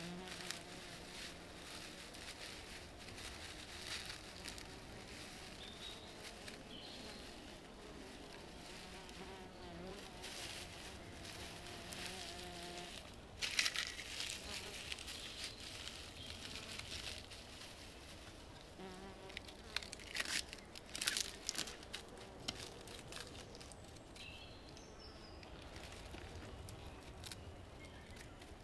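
A flying insect buzzing close by, its hum wavering in pitch and fading out about halfway through, then buzzing briefly again. A few short, sharp noises break in, loudest about halfway through and in a cluster later on.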